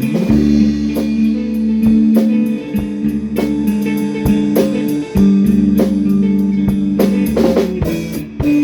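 A band playing an instrumental jam: guitar holding long sustained notes over bass, with a drum kit keeping time on snare, kick and cymbals.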